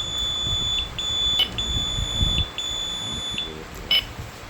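High-pitched electronic beep tone from a Vision UK wireless addressable fire alarm system's sounder, held in stretches of about a second with short breaks and stopping a little before the end, during detector pairing. A couple of sharp clicks and low handling noise sound alongside it.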